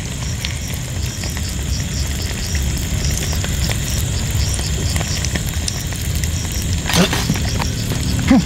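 Salted fish frying in oil in a small pan, a steady sizzle over a low rumble, with two short louder sounds about seven seconds in and near the end.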